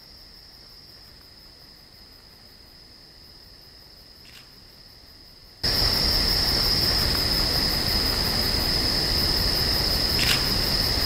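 Crickets trilling in a steady high-pitched chorus over a faint hiss, with two brief chirps. A little past halfway the whole sound abruptly jumps much louder.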